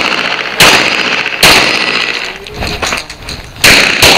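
Pistol shots on a timed practical-shooting course of fire. There are three shots: the first two are a little under a second apart, and the third comes after a pause of about two seconds. Each shot rings on afterwards.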